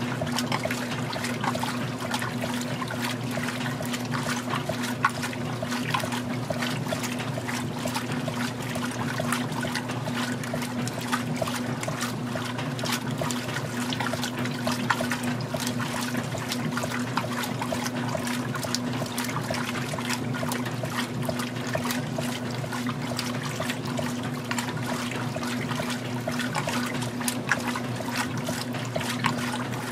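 Magic Chef 20-pound top-load washer agitating a load in its rinse cycle: water sloshing and churning around the agitator over a steady motor hum.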